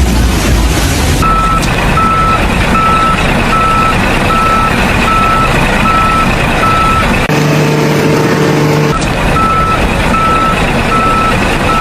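Vehicle reversing alarm beeping at a steady rate, about one beep every three-quarters of a second, over loud engine and machinery noise. The beeping breaks off for a couple of seconds in the middle, where a steady low hum takes over, then resumes.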